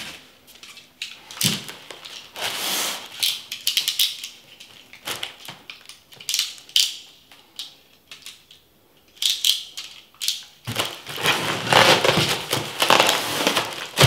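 Packing tape being cut and pulled off a polystyrene foam shipping box, with scattered scrapes and crackles. Near the end comes a denser stretch of foam rubbing and scraping as the lid is worked loose.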